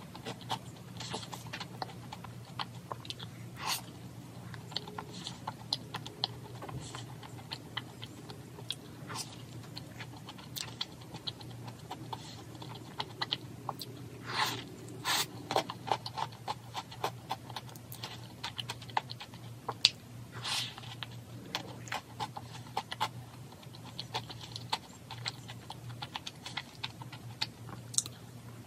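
Eating sounds: scattered small clicks and taps of a utensil and packaging, with chewing, over a steady low hum.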